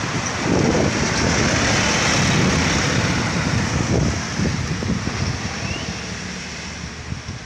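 A heavy road vehicle passing close by: engine and tyre noise swell about half a second in and fade away over the last few seconds.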